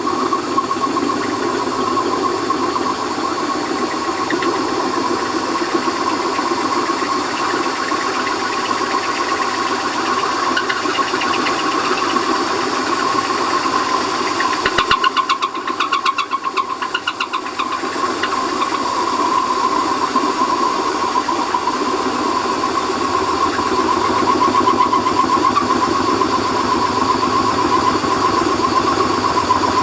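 Warco lathe running with no cut, giving a steady whine over a hum. About halfway through there is a brief rattle and a dip in level before it settles back.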